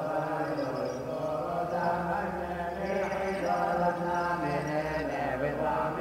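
Syriac Orthodox liturgical chant: voices chanting a continuous melodic line over a steady low held note.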